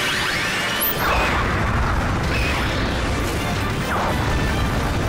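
Action sound effects of an energy beam striking and exploding, with a deep boom about a second in, over battle music.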